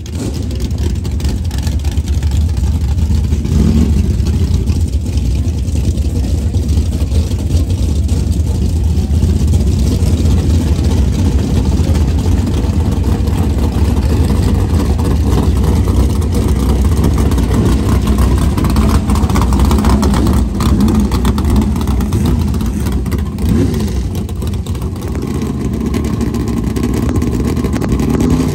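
Drag-racing vehicle engines running at a dirt drag strip, a loud steady rumble with no single launch or pass standing out.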